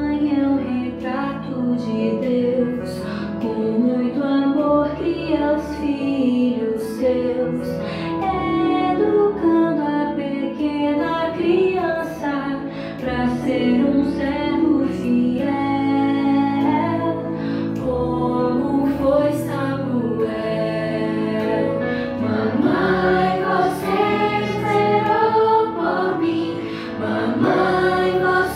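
Christian worship song: voices singing together over instrumental accompaniment.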